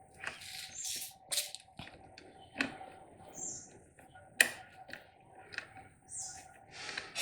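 Irregular small metallic clicks, knocks and rustles of hand tools and mount hardware being handled while a bolt on a handlebar phone mount is tightened, with two sharper clicks about two and a half and four and a half seconds in.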